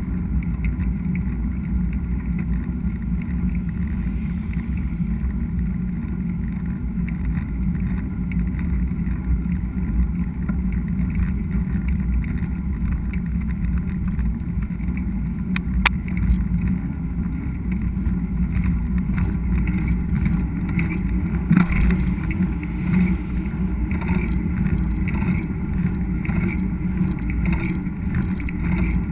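Steady rumble and wind noise of a mountain bike rolling along a dirt trail, picked up by a GoPro action camera's microphone, with one sharp click about halfway through.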